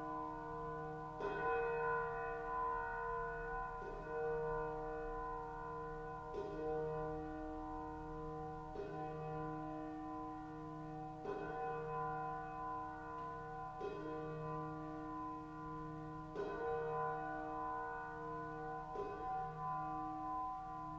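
A single bell tolled slowly, struck eight times about every two and a half seconds, each stroke ringing on into the next.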